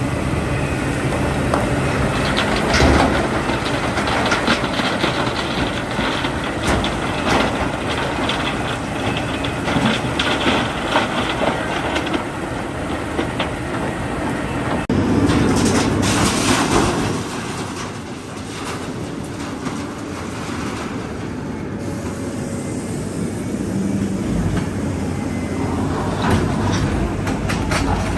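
Heavy excavator at work: its diesel engine runs steadily under load, with repeated metallic clanks and knocks from the machine.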